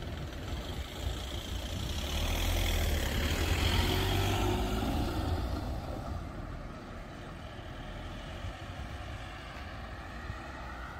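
A passing vehicle's low rumble, swelling to its loudest about three to four seconds in and then fading away.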